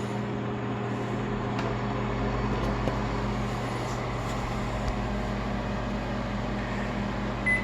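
Microwave oven running: a steady hum and fan noise through a short heating cycle, with a short high beep near the end as it finishes.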